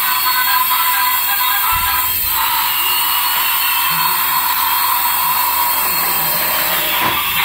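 Small electric motor and plastic gears of a battery-powered toy whirring steadily at a high pitch.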